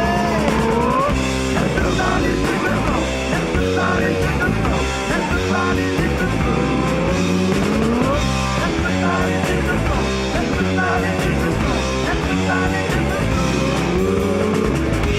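Rock band playing live: a pulsing bass and drum beat under a lead line whose notes bend and slide in pitch.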